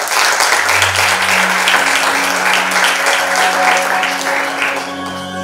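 Audience applauding in a hall, the clapping thinning out near the end. A low sustained musical note comes in underneath about a second in.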